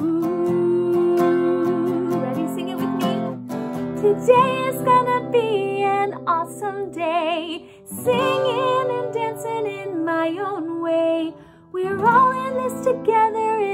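A woman singing a slow, gentle song to her own strummed acoustic guitar. She holds a long note at first, then sings with vibrato on the held notes, with short breaks between phrases.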